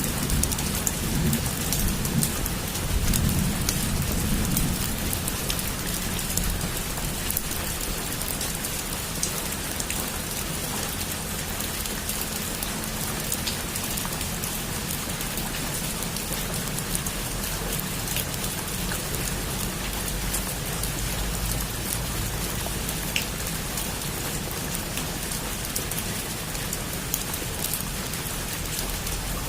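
Heavy rain falling steadily on a rooftop: a dense, even patter with scattered sharp drop clicks, and a low rumble in the first few seconds.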